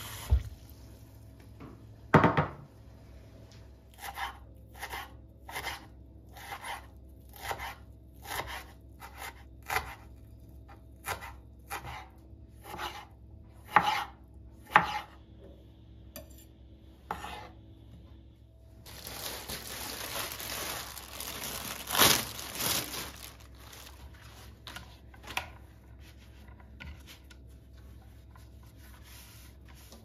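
Kitchen knife chopping on a wooden cutting board: a loud knock, then a run of short sharp strikes about two a second, followed by a stretch of rougher scraping noise with one more loud knock.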